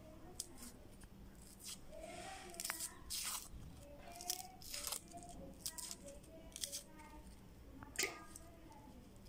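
Fingers peeling the dry, papery skins off small red onions, with faint irregular crackles and sharp little tearing clicks.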